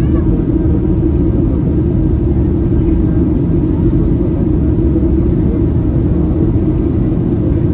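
Steady low cabin noise of a Boeing 737-800 in flight, heard from a window seat over the wing: the mix of its CFM56 jet engines and the airflow over the fuselage, unchanging throughout.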